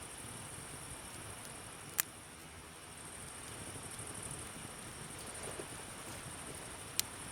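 Campfire burning with two sharp wood pops, about 2 s and 7 s in, over a steady high chirring of night insects.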